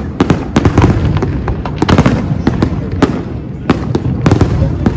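An aerial fireworks display going off: many sharp bangs and cracks in quick, irregular succession over a continuous low booming.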